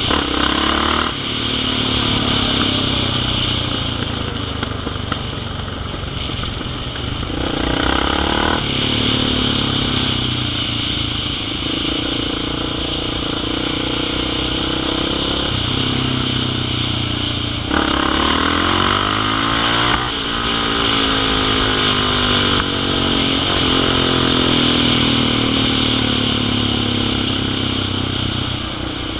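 Sport quad bike's engine under way on the road, its revs climbing and dropping. The pitch falls sharply a few times, about a second in, around eight seconds and around eighteen seconds, and rises steadily after each drop.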